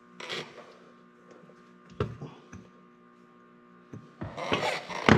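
Grease gun and hands working at the tractor's brake pedal pivot: a short scrape just after the start, a sharp knock about two seconds in, and rustling handling noise near the end, over a steady electrical hum.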